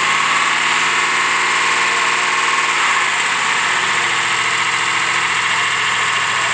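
Original 427 big-block Chevrolet V8 from a 1967 Corvette running steadily on an engine run stand, its exhaust going out through a short chrome muffler.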